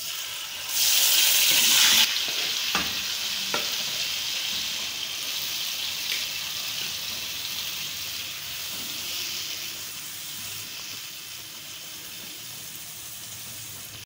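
Yogurt-marinated chicken going into hot oil in a karahi: a loud burst of sizzling about a second in, then a steady frying sizzle that slowly gets quieter. Two short knocks come a few seconds in.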